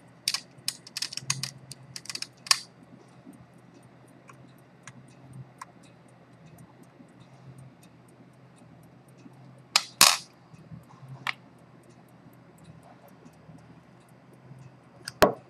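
Small sharp clicks and taps of metal watch parts and fine tools being handled on a watchmaker's bench: a quick run of light clicks in the first few seconds, then single louder clicks about ten seconds in and again near the end.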